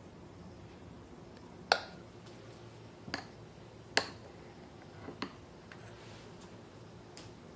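A spoon tapping and clinking against a glass cup while scooping whipped cream: about six sharp taps, the loudest about two seconds and four seconds in, some with a brief ring.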